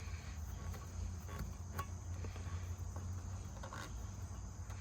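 Faint steady background noise: a low hum with a thin, steady high-pitched tone over it, and a few light clicks.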